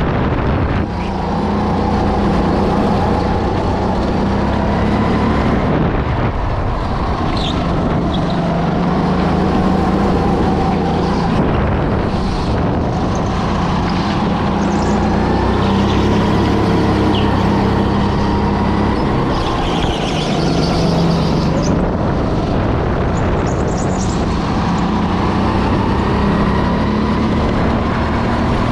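Go-kart engine running hard around a lap, its pitch climbing on the straights and dropping as the throttle is lifted for corners, several times over.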